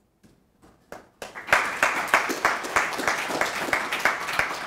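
Audience applauding: a few scattered claps, then full, steady applause from a little over a second in.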